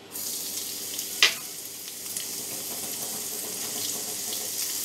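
Chopped onion and ginger-garlic paste sizzling as they go into medium-hot oil in a kadai: a steady frying hiss that starts as they hit the oil, with one light knock about a second in.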